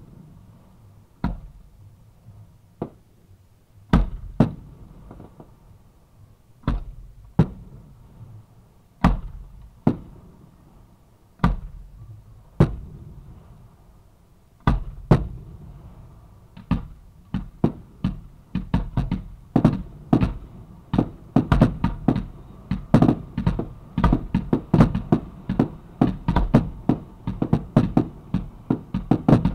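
Fireworks going off close by at the launch site: sharp, loud bangs, at first one every second or two, then from a little past halfway a rapid barrage of many overlapping bangs each second.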